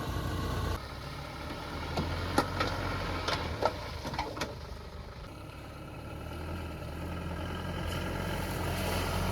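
A vehicle engine running steadily with a low hum, with a few sharp clicks or knocks between about two and four and a half seconds in.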